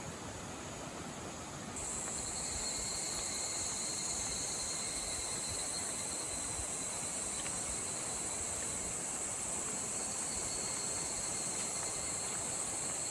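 Insects singing a steady, high continuous buzz that comes in about two seconds in, over the even rush of a mountain stream.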